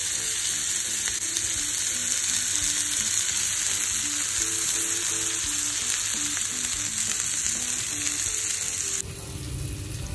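Mutton gola kababs and sliced onions sizzling in oil in a non-stick frying pan, a steady hiss. About nine seconds in it cuts off suddenly to a quieter low rumble. Faint background music runs underneath.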